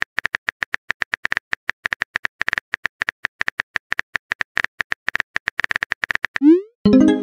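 Phone keyboard typing sound effect: fast, irregular tapping clicks. Near the end comes a short rising swoosh as the message is sent, and then music with several notes begins.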